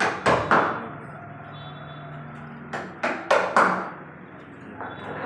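Sharp knocks on wood in two quick runs: three near the start and four about three seconds in.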